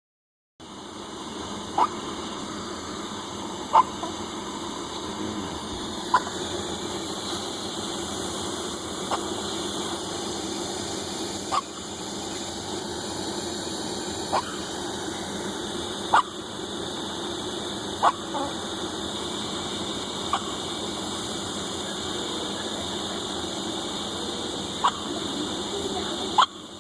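Repeated hiccups, about eleven short sharp ones spaced roughly every two seconds, over a steady background hum.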